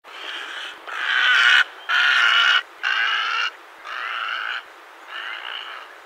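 A bird giving a series of six harsh, rasping calls, each under a second long, the second and third loudest.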